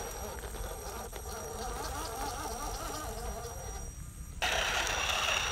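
Electric motor and gearbox of an RC scale crawler truck whining, the pitch wavering up and down with the throttle as it crawls over rock. About four and a half seconds in, the sound jumps abruptly louder and hissier.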